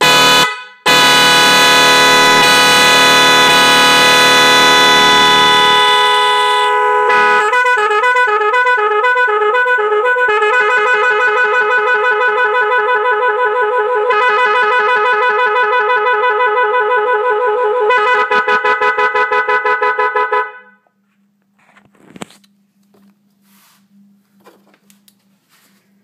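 Magic 10 multi-tone electric car horn, a pair of 410 Hz and 510 Hz horns driven by a control module, sounding loud: a short blast, then a steady two-note chord for about six seconds. It then plays warbling patterns that alternate between the two notes and a fast pulsing beep, and cuts off about twenty seconds in.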